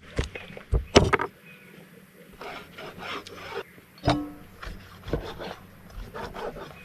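Several sharp knocks, the loudest about a second in and another around four seconds, between stretches of scraping and rubbing.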